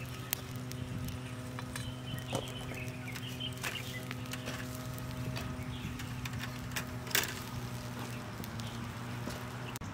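Open wood fire crackling under a steel mesh grill, with scattered pops and clicks and a sharper clatter about seven seconds in, over a steady low hum.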